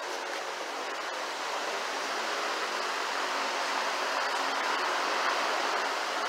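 Large pedestal fan running: a steady rush of air that swells slightly a few seconds in.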